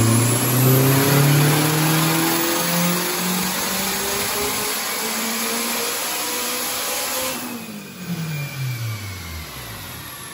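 Turbocharged K-series four-cylinder in a Honda Civic making a full-throttle dyno pull, its pitch climbing steadily for about seven seconds. Then it lets off and the revs fall away.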